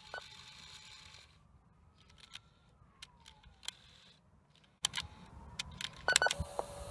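Quiet clicks from an Aiwa HS-PX580 portable cassette player's mechanism, several in a cluster near the end, with a faint whine that slowly rises and then falls in pitch. A faint steady tone comes in near the end.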